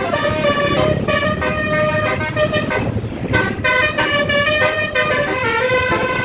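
Bus telolet horn, a multi-note musical air horn, playing a quick run of changing notes with a short break about three seconds in.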